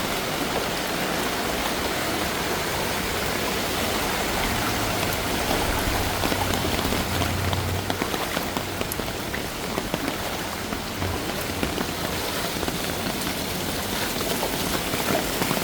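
Heavy rain pouring steadily onto a flooded street. A low rumble swells and fades about halfway through.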